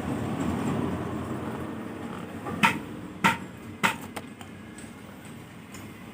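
A steady background noise fades away. Then come three sharp taps or knocks about half a second apart, followed by two fainter clicks.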